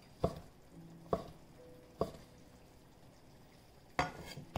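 Kitchen knife slicing through soft sourdough dumpling dough and knocking on a wooden cutting board: four sharp knocks roughly a second apart, the last the loudest.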